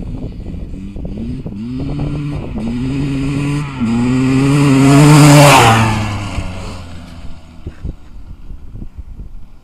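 Kawasaki KX250 motocross bike accelerating hard through several gear changes, the engine note climbing in steps as it approaches, loudest as it passes about five seconds in, then dropping in pitch and fading away.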